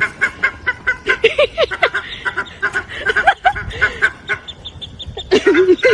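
A bird calling in rapid, repeated short calls, with a louder run of calls about five seconds in.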